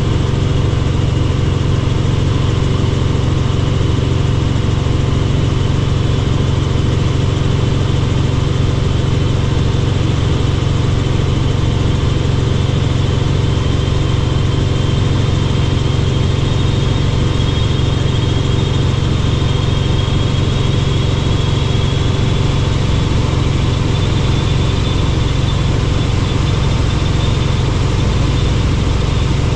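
Helicopter in flight heard from aboard: a steady, loud low drone of rotor and engine with a faint high whine above it that drifts slightly in pitch.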